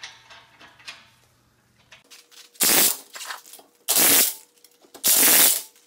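Impact wrench running lug nuts down on a car wheel in three short bursts, about a second apart, each on a different nut, snugging them before final torquing. Faint clicks of nuts being threaded by hand come first.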